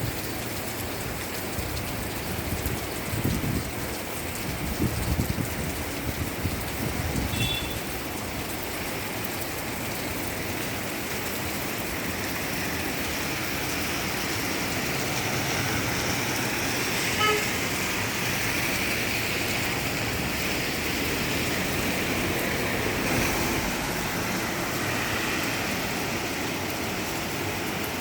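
Steady rain hiss mixed with passing road traffic, with a brief horn-like toot near the middle.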